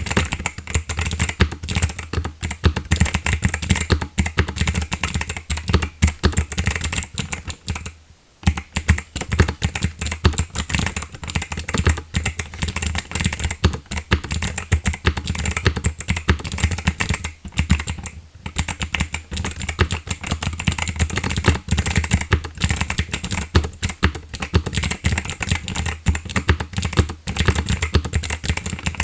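Continuous typing on a GMK67 mechanical keyboard with clicky Kailh Box White switches and DSA blank keycaps: a dense, irregular stream of sharp clicks, broken by two brief pauses, about 8 and 18 seconds in.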